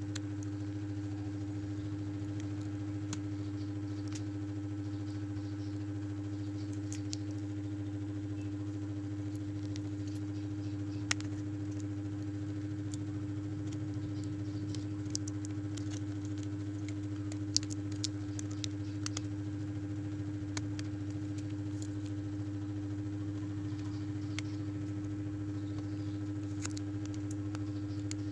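A steady low electrical hum, with a few light clicks and taps on top.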